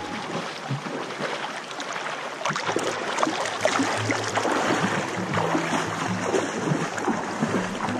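Shallow stream rushing over rocks right at the microphone, with splashing that picks up about two and a half seconds in as a person wades past towing a kayak through the water.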